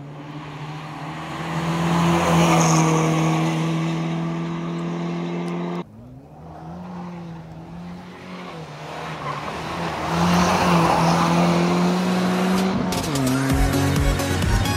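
Ford Ka N2 rally car's engine running at high revs through bends, its pitch dipping and rising. The sound cuts off abruptly about six seconds in and comes back, getting louder as the car comes closer. Music with a steady beat starts near the end.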